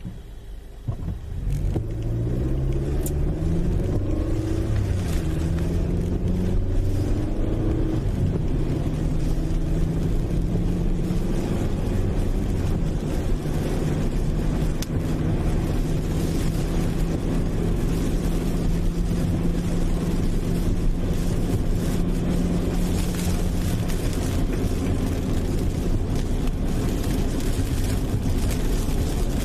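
A motor vehicle's engine accelerating, its pitch climbing in several steps as if shifting through gears, then holding a steady pitch at cruising speed over the rumble of driving.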